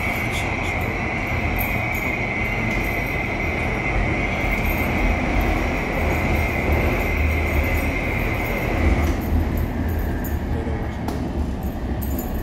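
Barcelona metro train running, heard from inside the car: a steady, heavy rumble with a high-pitched squeal on top that stops about nine seconds in.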